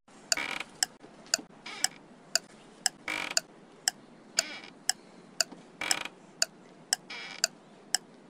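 A clock ticking steadily, about two ticks a second, with a few short, soft breathy sounds between the ticks.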